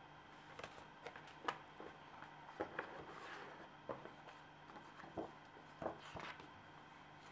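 Stiff game cards and paper instruction sheets being handled on a wooden table: a string of light, irregular taps and clicks, with a short paper rustle about halfway through.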